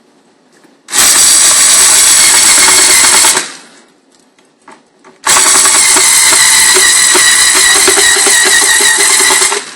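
Power screwdriver driving screws to fix a peephole viewer's mounting bracket to a door: two steady runs of the motor, one of about two and a half seconds, then a longer one of about four seconds.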